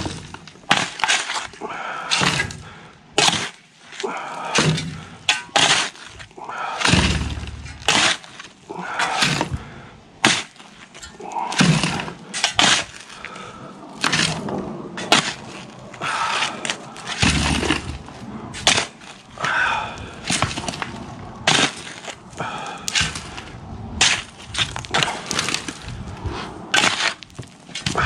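Steel shovel blade stabbing and scraping into hard, gravelly soil while a trench is dug by hand: repeated irregular crunching strikes with stones and dirt scattering, and a couple of duller thuds.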